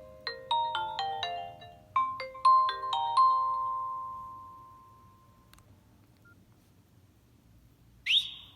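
Nokia 6681 built-in ringtone playing from the phone's loudspeaker: a quick melody of bright marimba-like notes, its phrase played twice, the last note fading out about five seconds in. Near the end a short rising electronic tone sounds.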